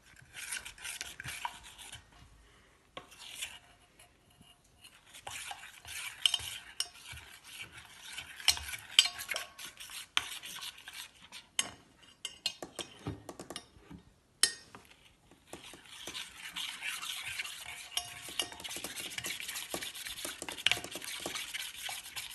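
A spoon stirring pancake batter in a bowl: wet scraping with frequent clicks of the spoon against the bowl, in stretches with short pauses. The batter is being beaten to break up the lumps.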